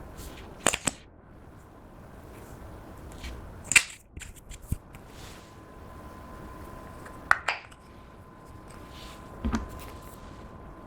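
Clear slime being worked by hand, giving a handful of sharp, wet clicks and pops at uneven intervals.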